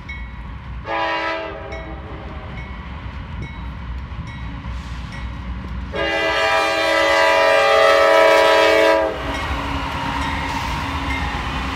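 Norfolk Southern freight locomotive's air horn sounded for a grade crossing: a short blast about a second in, then a long blast of about three seconds from six seconds in. After the horn stops, the lead locomotives rumble past close by.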